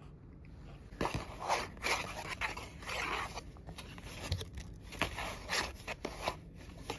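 Fingers rummaging inside an opened paperboard snack box, scraping and rustling the cardboard in a run of quick, scratchy strokes that start about a second in.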